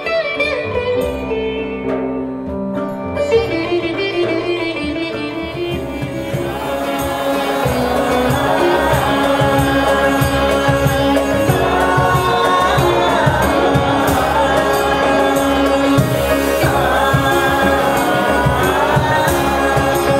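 Live band music: a string instrument and piano play a melodic passage, then about six seconds in hand percussion and drums enter with a steady beat and a woman sings over the band.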